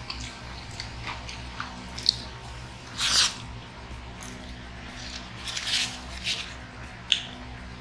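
Close-up eating sounds of chicken nuggets and a burger: wet chewing and lip smacking, with a few louder smacks about three seconds in and near six seconds.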